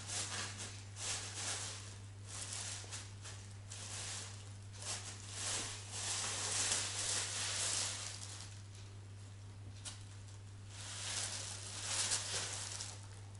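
Plastic bag rustling in irregular bursts as two cats paw at it and tug it about over a cardboard box, with a steady low hum underneath.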